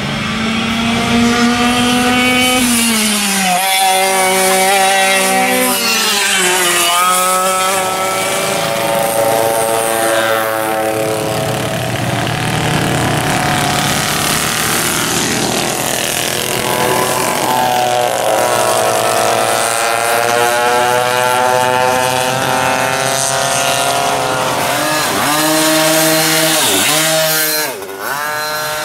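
Vintage racing go-kart engines revving hard as several karts race past. Their pitch rises and falls repeatedly as they accelerate and lift, with overlapping engines. A brief dip in the sound comes near the end.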